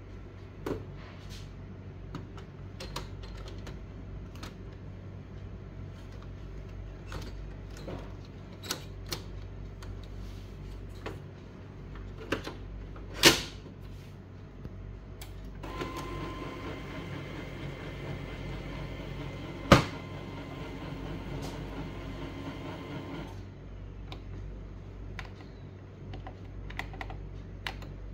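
Plastic clicks and knocks as a toner cartridge is handled and seated in an HP LaserJet Pro M1536dnf laser printer, with a loud snap about 13 seconds in as the printer's door is shut. A couple of seconds later the printer's internal mechanism runs with a steady whir for about seven seconds, broken by one sharp click: the printer starting up after the new cartridge is installed.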